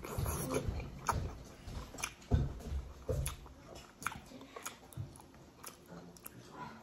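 A person biting and chewing a steamed momo dumpling close to the microphone: soft mouth sounds with irregular sharp clicks, busiest in the first three seconds and thinning out after.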